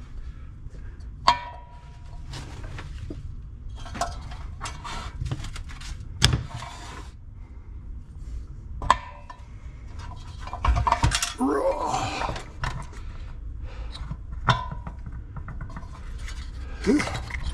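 Metal hand tools and engine parts picked up and set down on a steel workbench: scattered sharp metallic clanks, a couple of them ringing briefly, among handling noises over a steady low hum.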